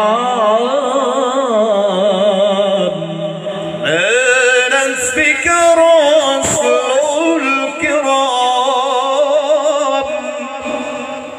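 Male reciters singing an Islamic sholawat through handheld microphones in the ornamented qori (Quran-recitation) style, the melody wavering in long melismatic runs. About four seconds in, the singing grows fuller as more voices come in together.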